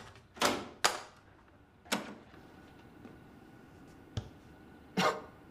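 Sharp mechanical clicks and clunks at irregular intervals, five or so, the last about five seconds in, as of a cassette tape recorder being handled: a tape loaded and the buttons pressed.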